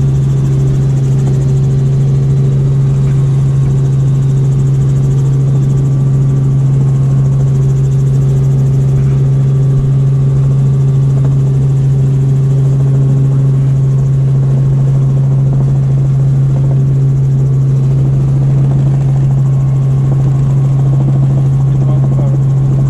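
Robinson R44 Raven II helicopter in level flight, heard from inside the cabin: a loud, steady drone of engine and rotors, dominated by one strong low hum that does not change.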